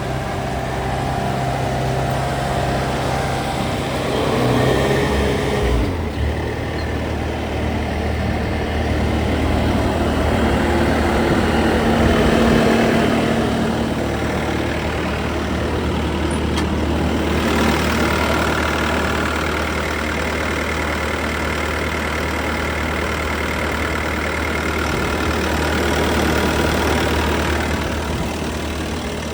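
Bobcat T590 compact track loader's 66 hp Tier 4 diesel engine running steadily, its note changing about six seconds in.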